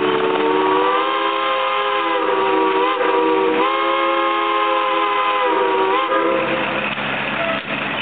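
A loud whistle sounding several tones at once, like a chord, in one long blast that falters briefly about three and a half seconds in and stops about seven seconds in. Under it an engine runs steadily.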